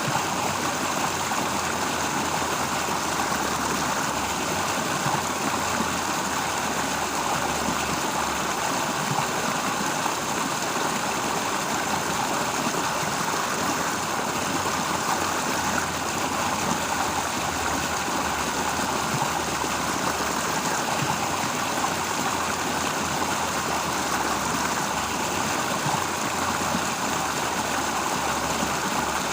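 Steady rush of flowing water from a stream, even and unbroken.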